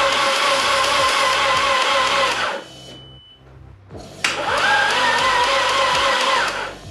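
Starter motor cranking a 1.8T 20-valve four-cylinder with its spark plugs out, to build oil pressure: a steady whine that stops about two and a half seconds in, then a second crank starting about four seconds in that rises in pitch as it spins up and runs for about two and a half seconds.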